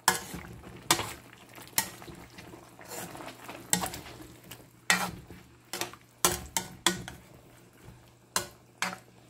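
A plastic spatula stirring chunks of bottle gourd and chicken in broth in a metal pan, with irregular scrapes and a dozen or so sharp knocks against the pan.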